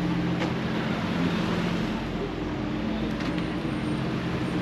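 Street traffic noise with a steady low hum from an idling motor vehicle's engine.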